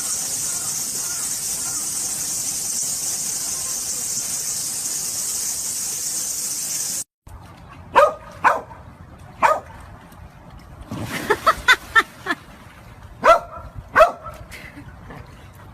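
A steady high-pitched hiss that cuts off suddenly, then a small dog or puppy giving short high yips and barks, some single and some in a quick run.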